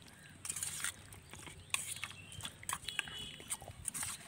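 Wet squelching and smacking from a hand mixing mutton pieces in a thick yogurt-and-spice marinade in a steel bowl, in short irregular bursts.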